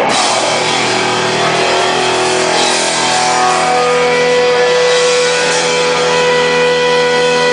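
Live hardcore rock band with distorted electric guitars holding ringing, sustained notes, the drums dropped out. A steady high tone, like amplifier feedback, comes in about four seconds in.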